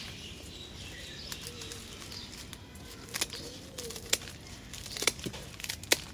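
Hand pruning shears snipping through leafy herb stems: a run of sharp clicks about a second apart, starting about halfway through.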